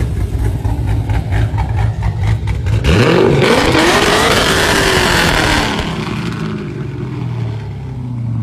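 2005 Cadillac CTS-V's LS6 V8 rumbling low, then about three seconds in it surges hard with its pitch climbing, before easing back to a steadier, lower note.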